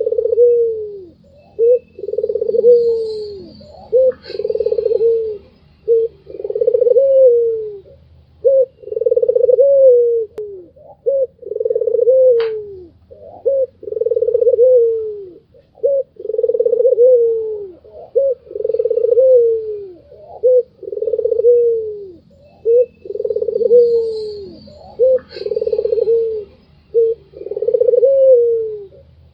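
White Barbary (ringneck) dove cooing over and over: drawn-out low coos that fall in pitch at the end, each about a second long and coming roughly every two seconds, with short clipped notes between them. This is the call the title calls its 'laughing' voice.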